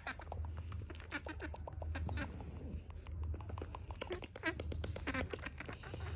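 A baby monkey giving short, high little calls in quick runs, with clicks and rustling from being held right against the microphone.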